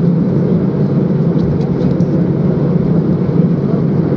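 Airbus A320's CFM56 jet engines at taxi idle heard from inside the cabin: a steady low hum and rumble.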